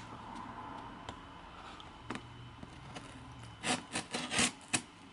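Open scissor blade slitting the packing tape on a cardboard box. After quiet handling, a quick run of loud scraping strokes comes over the last second and a half.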